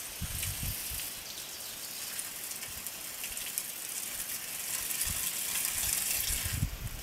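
Water gushing out of a punctured plastic gallon jug, a steady hiss that grows louder toward the end and drops off just before it ends, with a few low bumps from the jug being handled.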